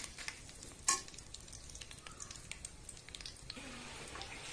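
Whole spices and curry leaves crackling and sizzling in hot oil and ghee in a pressure cooker, with faint scattered pops. One sharper click about a second in.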